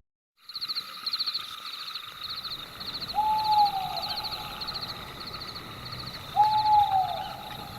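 Night ambience of insects chirping in quick repeated pulses over a steady insect hum, starting about half a second in. An owl hoots twice, each hoot a single held note that drops at the end.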